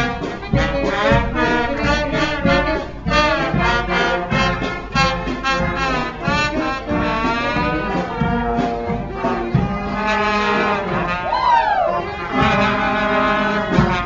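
Brass marching band playing a tune in short, rhythmic notes, with a few sliding notes about eleven seconds in.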